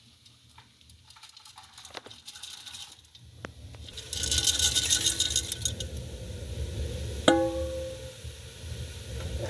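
Cooking sounds: light clicks of handling, then a burst of crackling sizzle from about four seconds in, and a single sharp clink of metal on metal a little after seven seconds that rings on briefly.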